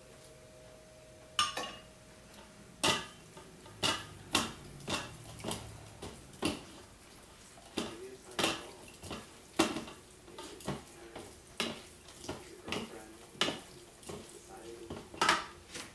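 Wooden spoon and wooden fork knocking and scraping against a bowl while tossing chopped meat, in irregular clicks about one or two a second, starting about a second and a half in.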